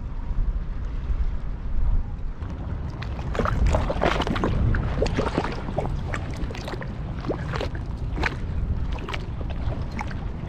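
Wind buffeting the microphone. From about three seconds in, small waves lap and slosh irregularly against the rocky shore.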